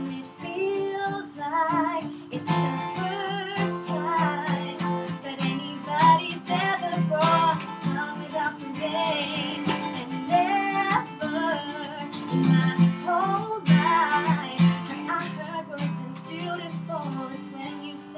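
A woman singing a pop ballad over a strummed steel-string acoustic guitar, with the rhythmic rattle of a hand-held egg shaker.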